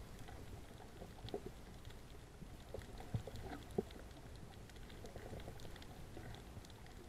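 Underwater sound heard through an action camera's waterproof case: a faint, steady low rumble of moving water with scattered small clicks, and two sharper knocks a little after three seconds and near four seconds in.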